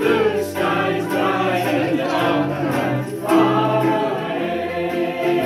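Live band music: a group of voices singing a song together over guitar accompaniment.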